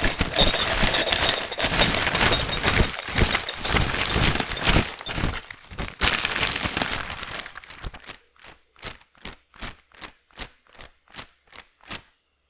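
Sound effect of a flood of paper letters pouring down and piling up: a dense crackling rustle that thins out about eight seconds in to single light taps, about three a second, fading away.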